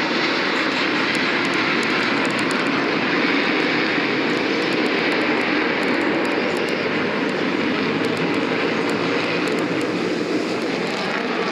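Jet noise from the Thunderbirds' F-16 fighters in flight: a loud, steady rushing roar that eases slightly near the end.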